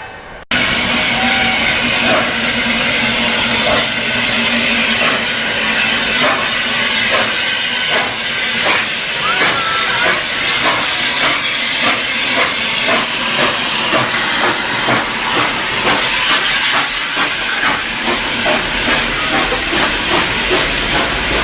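Steam locomotive hissing steam, with short repeated beats through the hiss that settle into a regular pulse in the second half. It starts abruptly about half a second in.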